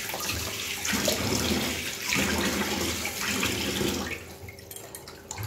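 Water running from a kitchen tap, which shuts off about four seconds in.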